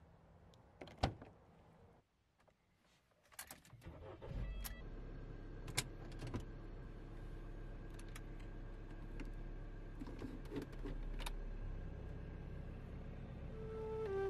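A car door handle pulled with a sharp click of the latch, then keys and a few clicks as the driver settles in. The car engine starts about four seconds in and idles steadily, with occasional small clicks from the cabin.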